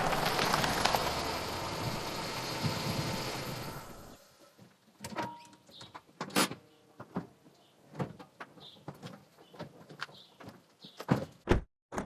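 Car sound effects in sequence. A dense car noise fades out over about the first four seconds, then a string of short, separate clicks and knocks follows, of the kind made by car doors and fittings.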